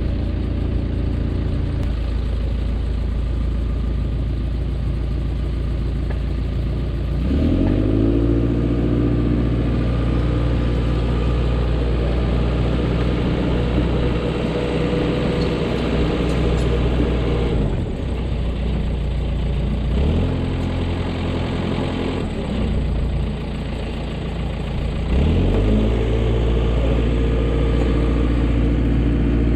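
Dresser bulldozer's diesel engine running under work. It revs up about seven seconds in, falls back after about eighteen seconds, and revs up again near the end.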